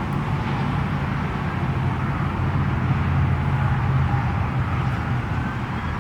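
Freeway traffic noise: a steady low rumble of tyres and engines, swelling a little about three to four seconds in as vehicles pass.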